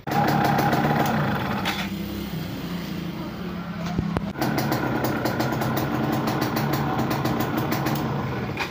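Yamaha F1ZR's two-stroke single-cylinder engine running.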